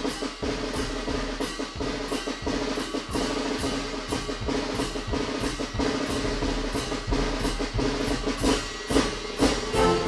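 Percussion-led music: drums beating a steady rhythm with snare rolls, over a few held instrumental tones.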